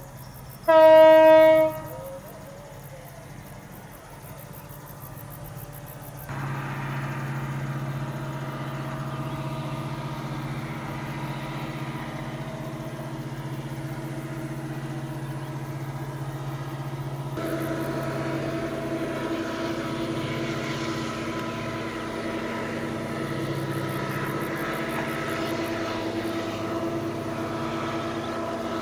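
A diesel locomotive's horn sounds once, a short blast about a second in. Then the locomotive's engine runs steadily as the train approaches, its hum getting stronger a little past halfway through.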